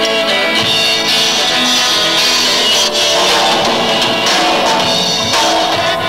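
Rock band playing live: electric guitars, bass guitar and drum kit playing together at a steady, loud level.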